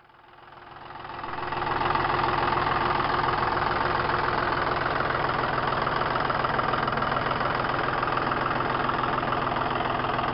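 Tractor diesel engine running steadily as it pulls a mounted turmeric and ginger planter, fading in over the first two seconds.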